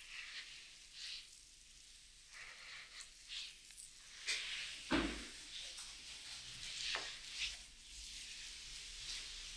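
Hands rubbing and stroking over skin in a chest and neck massage: irregular soft swishing strokes, with a louder one about halfway through.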